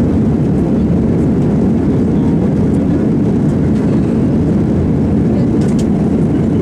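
Airliner cabin noise during the climb after takeoff: jet engines and rushing air heard from inside the cabin as a steady, low, even rumble.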